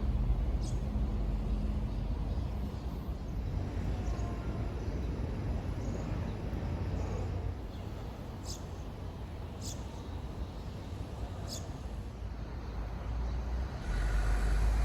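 Steady outdoor background noise with a low rumble of road traffic, louder near the start and end, and three short high chirps in the middle.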